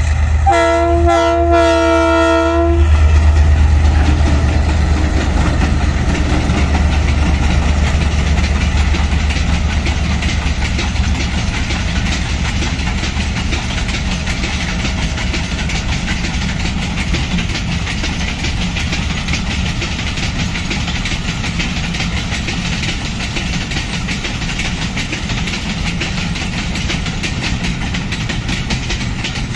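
A Pakistan Railways GMCU-15 diesel locomotive sounds its horn for about two seconds near the start. Its engine then runs heavily as it passes and fades after about ten seconds. A long rake of empty covered goods wagons clatters by on the rail joints.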